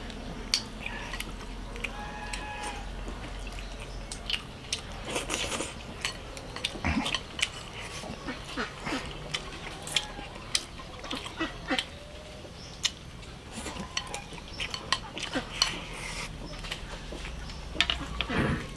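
Chopsticks clicking and tapping against a ceramic rice bowl and a metal stew pot while eating, many short clicks scattered throughout. An animal calls briefly in the background about two seconds in.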